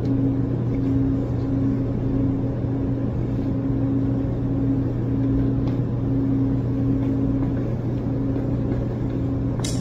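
Steady low room hum with a higher tone that comes and goes, and one short tick near the end.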